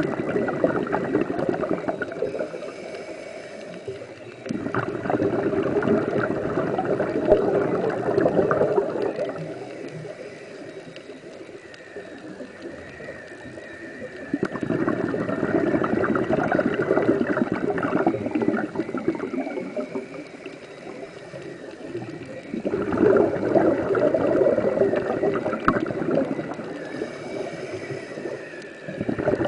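Scuba diver's exhaled breath bubbling out of the regulator underwater: gurgling rushes several seconds long, four times, with quieter pauses between them while the diver breathes in.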